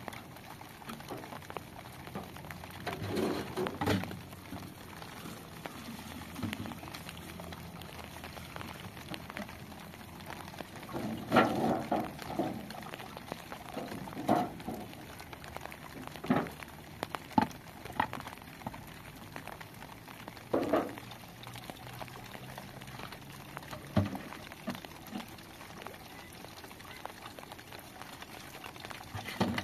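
Water gurgling and splashing from plastic jugs as they are emptied and handled, with scattered knocks and bumps of the plastic containers.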